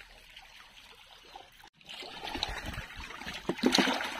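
Quiet outdoor ambience, then from about two seconds in, water splashing and sloshing as freshwater pomfret (pacu) thrash in a water-filled plastic drum and net while being handled.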